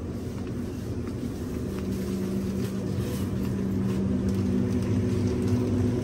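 Steady low mechanical hum with a few held tones, growing a little louder about four seconds in, with a few faint ticks.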